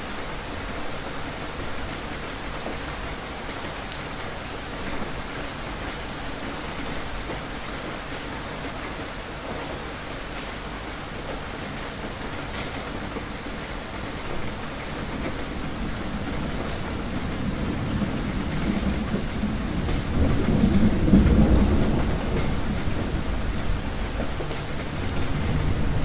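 Heavy rain falling steadily, with a low rumble of thunder that builds through the second half, peaks about three-quarters of the way through, then eases off.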